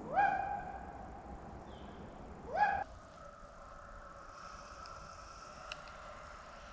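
Hunting hound baying close by: two loud bawls that slide up in pitch and then hold, one at the start and a shorter one about two and a half seconds in.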